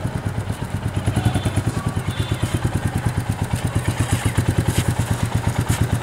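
Royal Enfield Meteor 350's single-cylinder four-stroke engine running at a steady idle, with an even, rapid beat of firing pulses and no revving.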